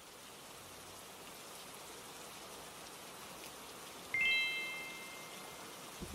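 Steady rain, with a single bright chime about four seconds in that rings for a moment and fades: the alert that the 30-minute reading timer has run out.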